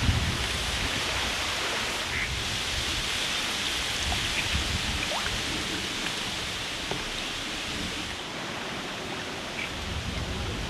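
Steady outdoor hiss with low wind rumble on the microphone at the start and again near the end, and a few faint short chirps.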